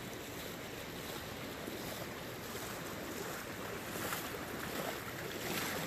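Fast creek current rushing steadily, with water splashing around a wading angler's legs in the shallows.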